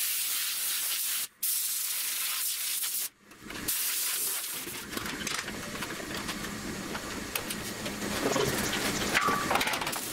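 MIG (wire-feed) welding on the steel frame: the arc gives a high, even, crackling hiss. It cuts out twice near the start, briefly, as the trigger is released.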